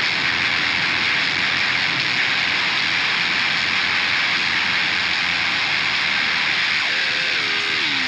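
Forcefield 2000 PLL effect putting out a steady, harsh noise like loud hiss, which cuts in suddenly. Near the end a tone steps down in pitch in several small jumps.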